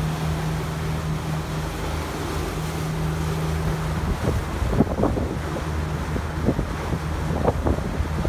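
Catamaran under way: a steady engine hum with wind buffeting the microphone and water rushing past the hulls. About four seconds in the hum drops away, leaving wind and water noise with a few brief louder moments.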